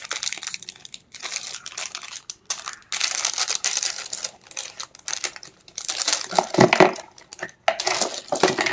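Clear plastic bag crinkling in bursts as it is handled and opened to take out plastic dotting tools.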